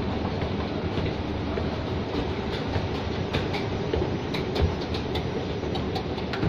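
Escalator running, a steady mechanical rumble with scattered clicks that come more often in the second half, heard while riding it.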